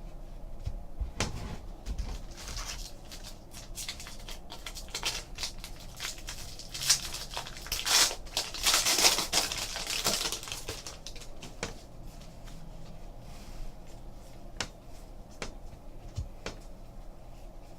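Trading card packs being torn open and their wrappers crinkled, with cards handled and flicked through in many small clicks and rustles; the loudest crinkling comes about seven to ten seconds in.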